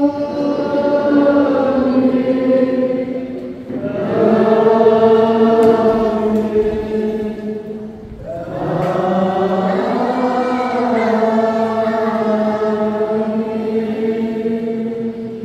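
A group of voices singing slowly together in three long held phrases, the last held longest.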